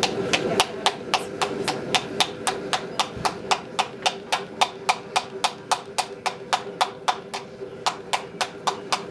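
Blacksmith's hand hammer striking a steel frying-pan blank on a forming stand in a steady rhythm of about four blows a second, each a short sharp clink. A steady hum runs underneath.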